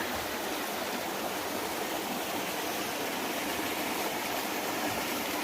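A stream running steadily over small waterfalls into rock pools.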